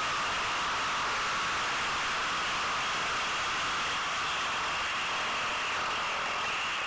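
Yamaha WR250 enduro motorcycle under way on a dirt track: a steady engine drone whose pitch wavers slightly with the throttle, mixed with a hiss of wind over the camera.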